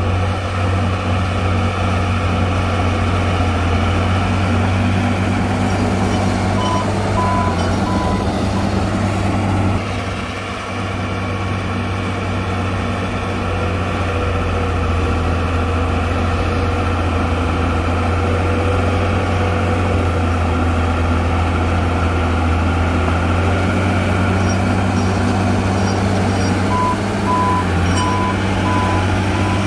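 Heavy diesel earth-moving machinery running steadily with a low drone, easing briefly about a third of the way in. A backup alarm beeps for a couple of seconds about a quarter of the way in and again near the end.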